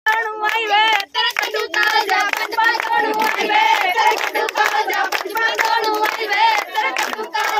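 Women and girls singing Punjabi boliyan for gidha, with the group clapping along in a steady rhythm.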